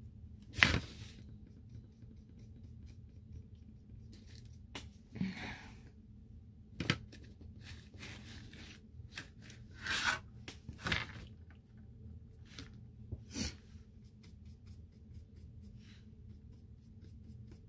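Handling noises as a painted sheet is shifted and turned on a tabletop: a sharp knock under a second in, the loudest sound, then scattered rustles, taps and clicks, over a faint steady low hum.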